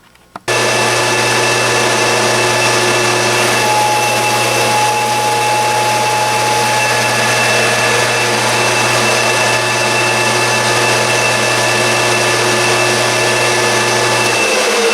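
Benchtop mill-drill switched on about half a second in, its motor and spindle running steadily with a low hum and a few steady whining tones. The low hum drops away near the end.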